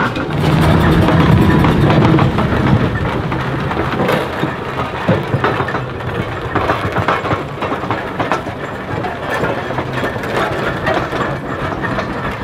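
Steam traction engine and steam roller running, with a low rumble in the first couple of seconds, then steady mechanical clanking and knocking from the moving engine parts.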